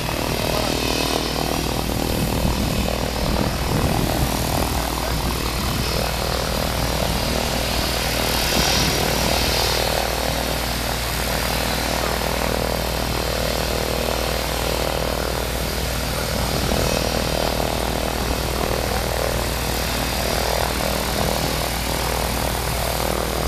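Van's RV-10 light aircraft's piston engine running steadily, its propeller turning.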